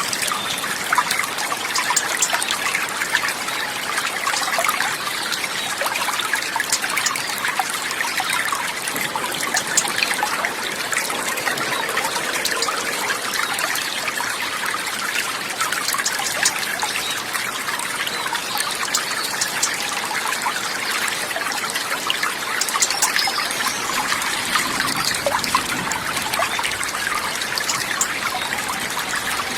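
Water trickling and babbling steadily over stones, a small flowing stream with a dense patter of tiny splashes.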